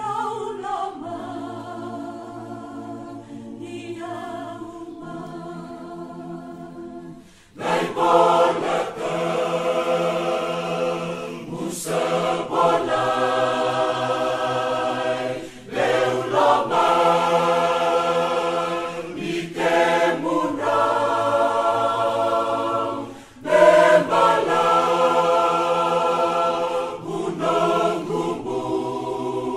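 A choir of voices singing a hymn unaccompanied, in long held phrases. It is softer at first and grows louder about a quarter of the way in, with brief breaks between lines.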